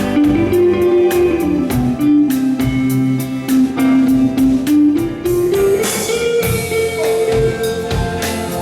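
A live rock band plays, with a guitar-led melody of long held notes stepping up and down over a drum kit.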